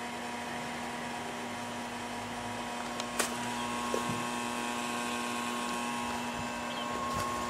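Loud, steady electrical buzz in a Volvo 740 with freshly cut-down wiring, coming on suddenly when the power is switched on, with a second higher tone joining about three seconds in. The source is unknown; it seems to come from near the glove box and may be the HVAC blower fan.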